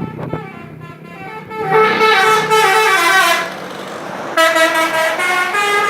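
Multi-tone 'telolet' musical bus horn on a Duta Gemilang coach playing a dance tune. It comes in about two seconds in with a quick run of stepping notes, breaks off briefly, then comes back with loud held notes.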